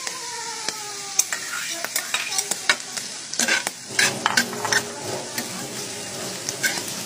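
Diced ham and mushrooms sizzling in a nonstick frying pan, with a spatula scraping and clicking against the pan as they are stirred. The stirring strokes come thickest around the middle.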